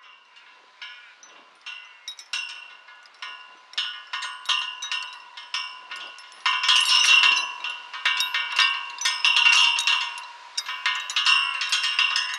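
Hanging chains and iron rings of a 1930s flying-chain swing (maypole) clinking and jingling against each other and the metal pole, each strike ringing on. Scattered clinks at first, growing into denser, louder jingling about halfway through.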